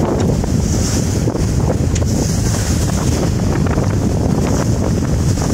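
Strong wind buffeting the microphone aboard a Bavaria 45 sailing yacht beating close-hauled, with water hissing along the hull in swells every second or two.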